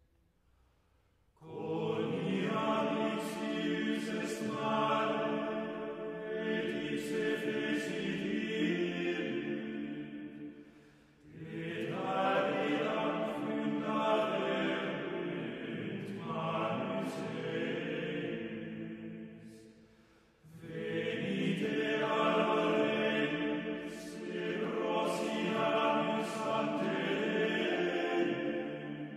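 Background music of a choir singing slow chant in three long phrases, with short breaks about 11 and 20 seconds in. It begins after a second or so of near silence.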